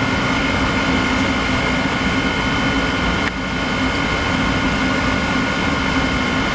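Amtrak P42DC diesel locomotive running slowly, a steady engine drone with a constant whine on top. There is a brief click about three seconds in.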